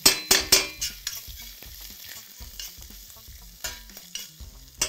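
Chopped onion and garlic frying in oil in a stainless steel pan, sizzling, while a metal spoon stirs and scrapes against the pan. There are a few quick scrapes in the first second and more near the end.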